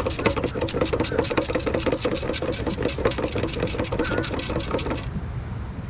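Sand scoop being shaken hard to sift sand from a metal detecting target, a fast, even rattling that stops about five seconds in.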